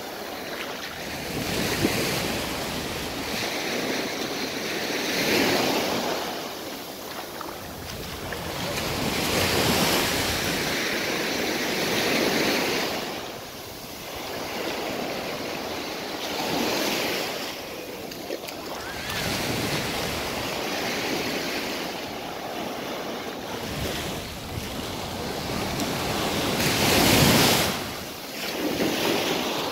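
Waves breaking on a sandy beach, the surf swelling and falling back every few seconds, with the loudest break near the end.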